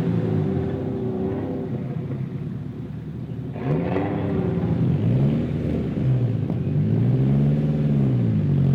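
Car engine revving up and easing off several times, its pitch rising and falling in repeated sweeps.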